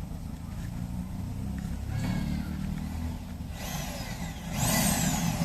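A steady low engine-like rumble, with a high whine that falls steeply in pitch about two seconds in and a louder falling whine near the end, like a small motor winding down.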